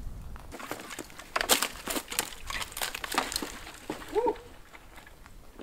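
Footsteps crunching irregularly through dry scrub and stony ground. About four seconds in there is one short call that rises and falls in pitch.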